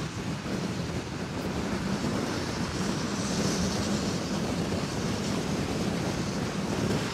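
Wind rushing over the microphone of a moving camera, with a vehicle engine running steadily underneath; it gets a little louder about two seconds in.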